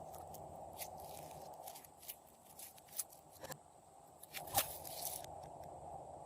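Slime being squished and stretched by hand, giving scattered small sticky clicks and crackles, the loudest about four and a half seconds in.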